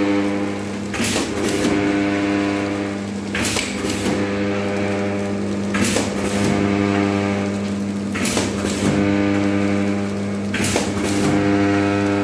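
Vertical form-fill-seal pouch packing machine running in a steady cycle: a constant electrical hum, a motor tone that starts and stops with each cycle, and a pair of sharp clacks about every two and a half seconds as the jaws seal and cut off each pouch.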